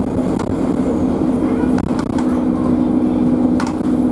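Euro 5 Alexander Dennis Enviro200 bus's engine and drivetrain heard from inside the cabin: a steady drone that eases off about half a second in and picks up again about two seconds in, with a few sharp rattles from the bodywork.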